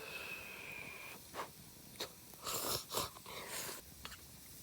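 A person eating barayaki, grilled beef and onions: a few short clicks and brief noisy bursts of biting and chewing close to the microphone.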